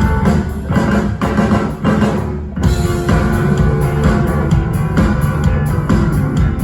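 Rock band playing, with drums, guitar and bass. The sound drops briefly about two and a half seconds in before the full band comes back in with a hit.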